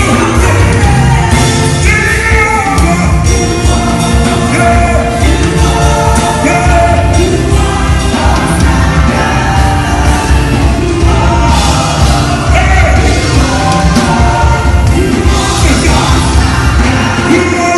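Loud music with a singing voice over a full backing with strong, steady bass.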